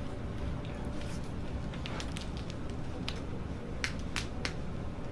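Faint scattered clicks and soft rustling over a low steady hum.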